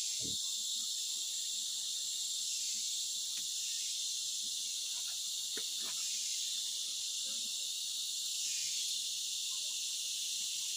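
Steady high-pitched chorus of forest insects, even in level throughout, with a few faint ticks a few seconds in.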